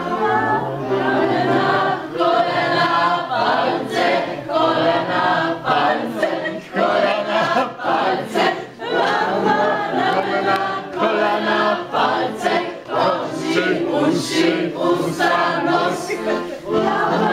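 A group of people singing a song together, continuously and loudly.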